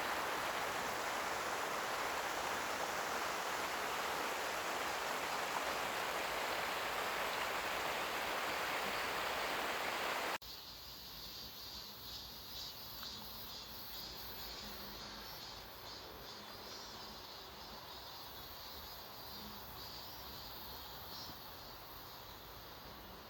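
Steady rush of a rain-swollen stream, an even noise that cuts off abruptly about ten seconds in. What remains is a much quieter outdoor background with faint high chirps, like insects.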